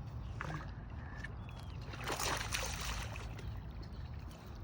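A short splash on the water about two seconds in, over low steady water and background noise. A faint high chirp comes just before it.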